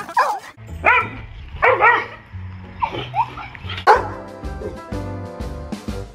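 A bulldog giving about four short, rising-and-falling howling calls over music with a steady bass line.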